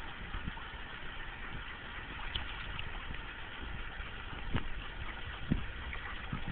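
Steady background noise with a low rumble under it, and a few short, soft low thumps.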